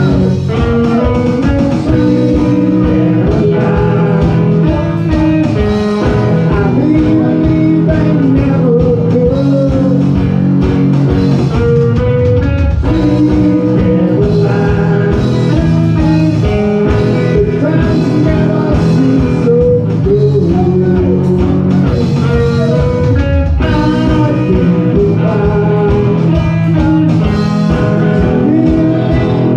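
Live rock band playing loudly through a PA: electric guitar over bass and a steady drum beat, in a blues-rock groove.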